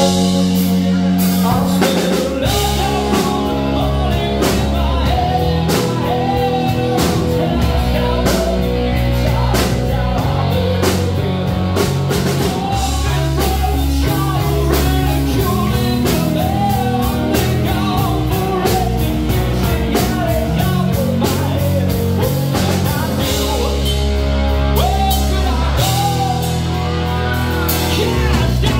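Live rock band playing: electric guitar, bass guitar and a drum kit keeping a steady beat, with a singer's voice over them.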